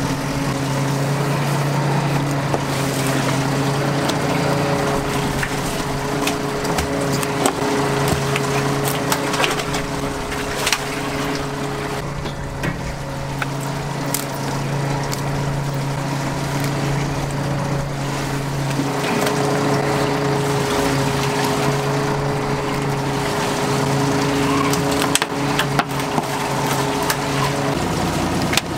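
A fishing boat's engine running with a steady low hum, with scattered sharp clicks and rustling from fish being worked free of a gill net.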